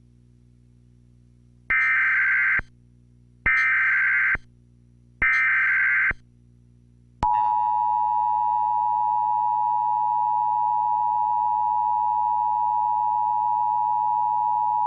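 Emergency Alert System activation for a tornado warning: three bursts of SAME digital header data tones, each just under a second long and evenly spaced, then about seven seconds in the steady two-tone EAS attention signal starts and holds.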